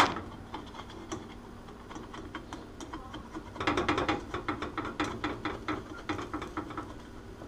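A spatula scraping and tapping against a frying pan while lifting the edges of a cooking omelette. It is a rapid run of small scrapes and clicks, louder and busier from about three and a half seconds in.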